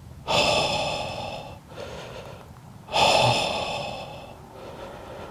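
A man's two long, heavy breaths close to the microphone, about three seconds apart: a hunter catching his breath in excitement just after shooting a buck.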